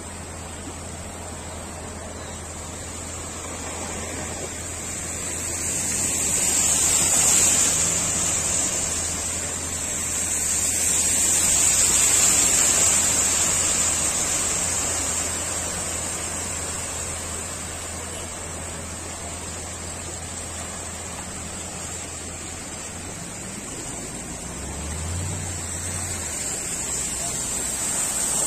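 Muddy floodwater rushing and splashing around a vehicle driving through a flooded road, swelling louder twice in the first half, over a steady low engine hum that rises briefly near the end.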